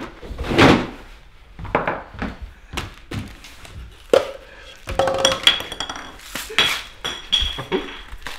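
Kitchen clatter of crushed nuts tipped from a ceramic bowl onto a plate, then a metal can handled and set down on the food: a run of irregular knocks and clinks, a few of them ringing briefly.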